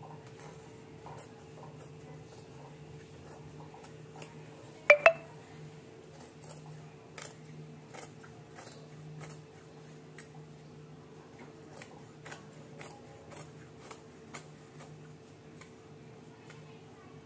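Tailor's scissors cutting through cotton blouse fabric: a run of faint, short snips of the blades closing, with one loud double clack about five seconds in.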